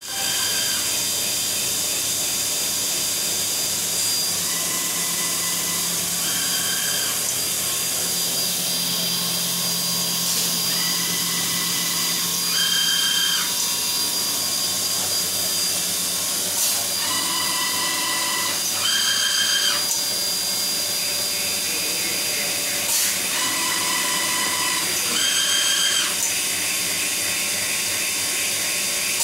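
CNC machining centre servo drives whining in about eight short moves of a second or so, mostly in pairs, each move held at one steady pitch, over a constant high hiss from the running machine.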